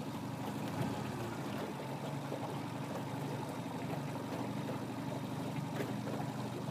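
Steady low hum from a small fishing boat on the water, with water lapping at the hull and a couple of faint ticks.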